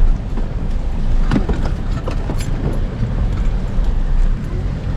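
A 4x4 crawling slowly over a rocky trail: a steady low engine and drivetrain rumble, with a few sharp knocks from rocks striking the underside.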